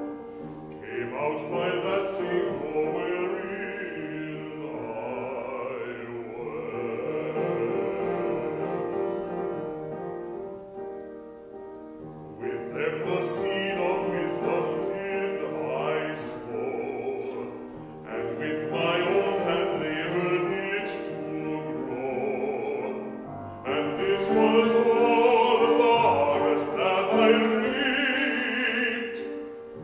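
Operatic bass voice singing an art song with wide vibrato over piano accompaniment, in several long phrases separated by short pauses where the piano carries on.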